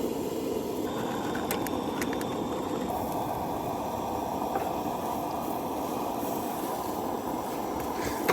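A cooking stove burner running steadily under a pan of pancakes, with a few light clicks of utensils about two seconds in and again midway.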